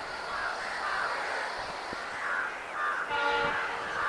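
A short blast of a diesel locomotive's multi-tone horn about three seconds in, with crows cawing repeatedly around it.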